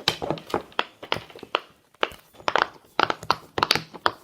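Silicone bubbles of a giant pop-it fidget toy being pressed in quick succession, a fast, uneven run of soft pops with a brief pause about halfway through.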